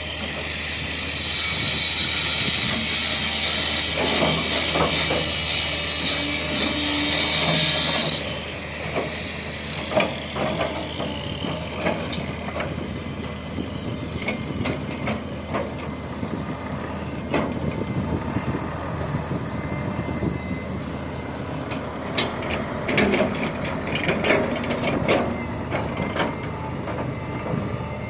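A heavy vehicle's engine running steadily, with a loud hiss of air for about seven seconds that cuts off suddenly, followed by scattered metallic clanks and knocks.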